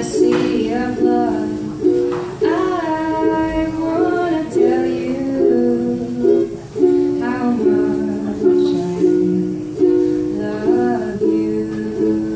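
Solo ukulele played in slow, steady chords, with a woman singing a slow melody over it.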